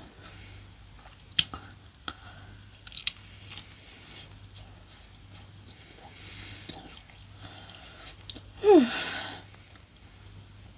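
Close-up chewing and biting into a chicken drumstick, with wet mouth sounds and a few sharp clicks. Near the end there is a short, loud vocal sound that falls steeply in pitch.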